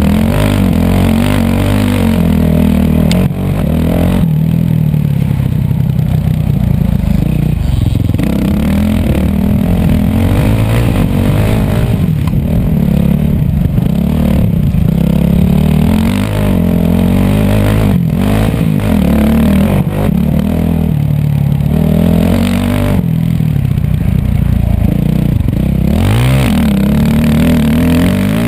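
Dirt bike engine heard close from onboard the bike, its pitch rising and falling again and again as the throttle is opened and closed through the track's jumps and turns, with some clatter from the bike.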